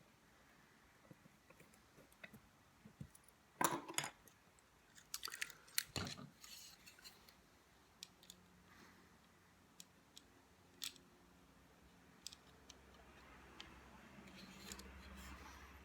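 Faint clicks, taps and scrapes of small parts being handled as the body of a Märklin H0 model locomotive is fitted back onto its chassis, busiest a few seconds in, with a faint low hum near the end.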